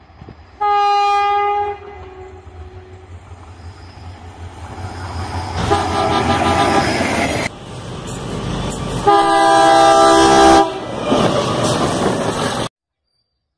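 Train horn blasts and passing-train noise laid over the opening titles. One loud horn blast comes about half a second in, then a train is heard growing louder with a fainter horn. After a sudden change, a second loud horn blast comes about nine seconds in, and the train noise then cuts off abruptly near the end.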